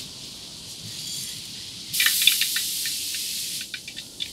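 Mustard seeds frying in hot oil in a wide metal pan. A soft sizzle jumps about two seconds in to a sudden loud hiss of sizzling that lasts over a second, then gives way to scattered crackling pops.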